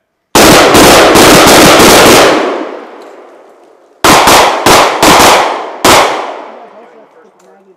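A line of shooters firing pistols on command. A rapid volley of overlapping shots lasts about two seconds, then after a pause comes a sparser string of about half a dozen shots, each ringing out and echoing.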